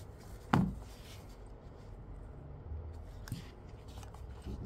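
Hands handling a phone and a plastic pry pick: one sharp knock about half a second in, then faint rustling and a small click a little past three seconds in.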